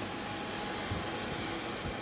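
Termal 6 pellet stove running, its fans giving a steady even noise with a faint thin steady tone.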